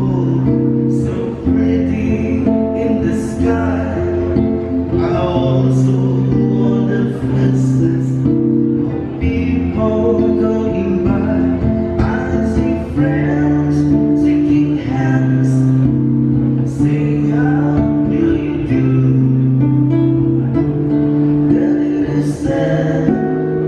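A male singer performing with a strummed acoustic guitar, singing into a microphone; the guitar chords change every second or two under the melody.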